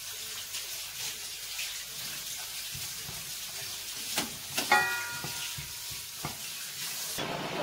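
Ginger pieces sizzling gently in a little oil in a stainless steel pot, a steady soft hiss. About halfway through, a wooden spoon stirs them and knocks a few times against the pot.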